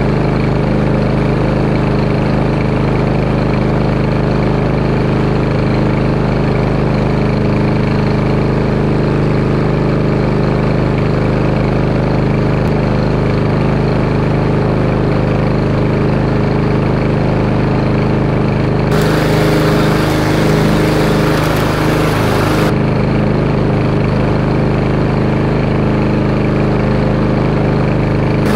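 Small single-cylinder gas walk-behind lawn mower engine running steadily. A harsher hiss joins for about four seconds past the middle.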